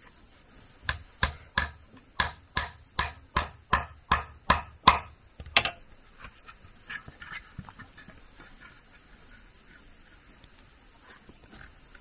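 About a dozen sharp blows in quick succession, roughly two and a half a second and growing louder, then a few faint knocks. A steady high buzz of insects runs underneath.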